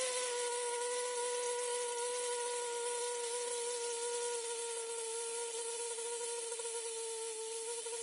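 Air rushing out of a water tap: a steady hiss with a whistling tone that sinks slightly in pitch and eases a little in level.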